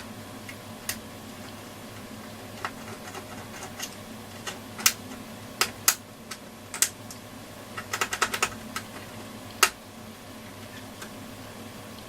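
Scattered sharp clicks and taps from handling the transistor radio and its headphone socket, with a quick run of clicks about eight seconds in, over a faint steady hum.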